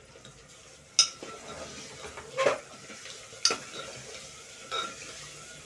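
A metal spoon knocks against the sides of an aluminium pressure cooker while stirring: four sharp clinks about a second apart. A faint sizzle of food frying in hot oil runs underneath.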